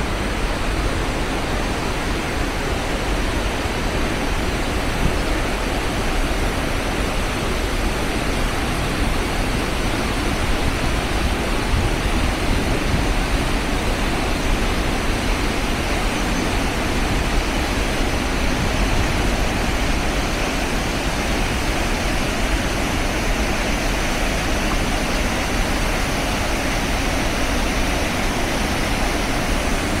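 Hogenakkal Falls on the Kaveri River: a steady, heavy rush of water pouring over the rock cascades and churning through the gorge, with a deep low rumble underneath.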